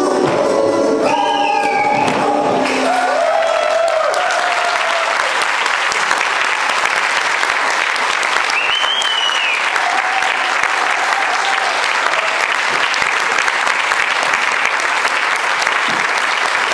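Live dance music ends in the first few seconds and an audience applauds steadily, with a brief high call from the crowd about halfway through.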